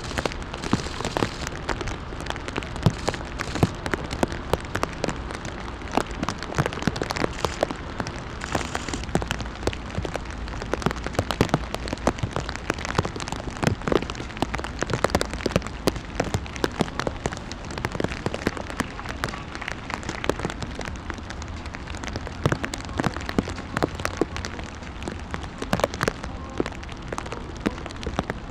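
Heavy rain pouring steadily, dotted throughout with irregular sharp taps of drops striking close by.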